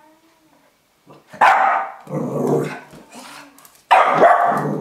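King Charles spaniel barking in loud, sudden barks, three in all, about a second apart, at a cat on the other side of a glass door.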